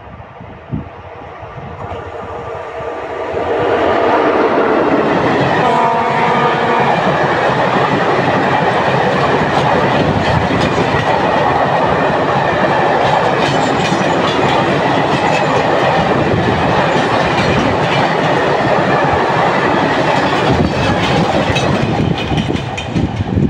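A freight train hauled by electric locomotive 163 022-7 approaches and passes at speed, with a loud running rumble from the locomotive and a long rake of empty flat wagons. The wheels clatter over the rail joints. The locomotive's horn sounds briefly about six seconds in, and the noise eases off near the end as the last wagons go by.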